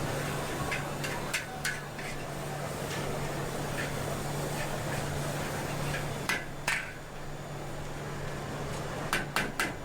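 Street-food stall cooking sounds: metal utensils clicking and clattering over a steady hum, with a quick run of taps near the end.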